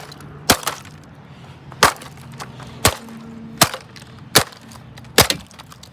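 Sledgehammer striking a Dirt Devil vacuum cleaner six times, about one sharp blow a second, the body breaking under the hits.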